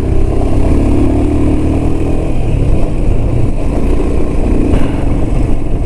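Royal Enfield Himalayan's single-cylinder engine running while riding, its note steady for the first couple of seconds and then sinking into a steady rush of wind and road noise.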